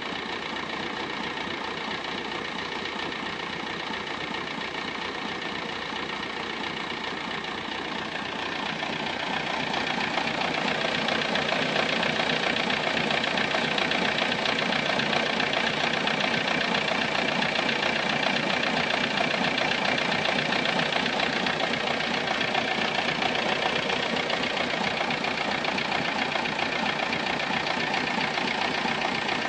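Volkswagen Golf Mk3 engine idling steadily with a strange noise in it that its owner wants diagnosed. It gets louder and brighter about nine seconds in.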